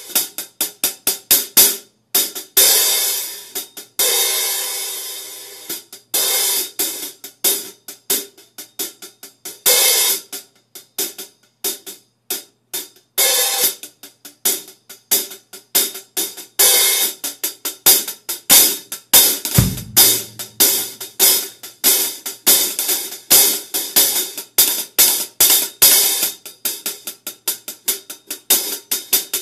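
Zildjian K Custom Hybrid 13.25-inch hi-hats struck with a drumstick: fast, bright, loud strokes in shifting patterns, some left ringing longer. A single low thump about two-thirds of the way through.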